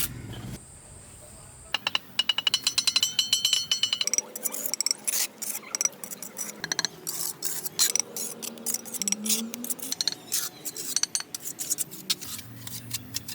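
Rapid clicking and clinking of small hard objects, with a ringing, glassy tone about two to four seconds in.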